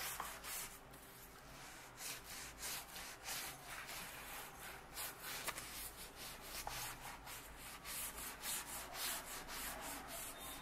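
A brush scrubbing a fridge door's rubber gasket after it has been sprayed with cleaner: quick, repeated scratchy strokes.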